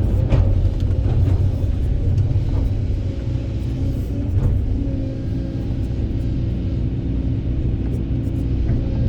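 Kobelco SK200 excavator's diesel engine and hydraulics working under load: a steady low rumble with a faint held whine, and a few short knocks, the first and loudest just after the start.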